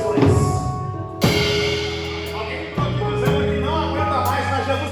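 Live gospel band playing instrumental music: sustained keyboard-like chords over a drum kit, with a cymbal crash about a second in.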